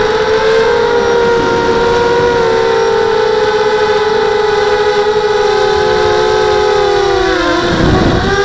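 Brushless motors and 5x3 propellers of a small FPV quadcopter (SunnySky X2204 2300KV motors) whining steadily, recorded by the onboard camera, with several close pitches beating against each other. Near the end the pitch drops sharply and then climbs back as the throttle is cut and reapplied.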